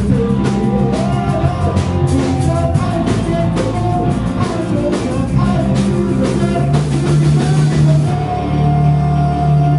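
Live rock band playing with drum kit, electric guitar and bass, and a voice singing. About eight seconds in the drumming stops and a held guitar chord rings on.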